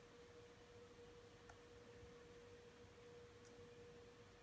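Near silence: room tone with a faint, steady mid-pitched tone, and two faint ticks about two seconds apart.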